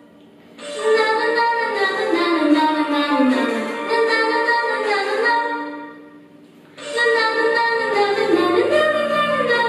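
A boy singing a slow song in Polish. Two long phrases start about half a second in and about seven seconds in, with a short pause for breath between them.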